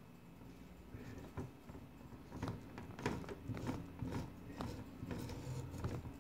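A hand-held grout tool scraping and tapping over stained-glass mosaic pieces as grout is pressed into the gaps: irregular clicks and scrapes, starting about a second in and growing busier.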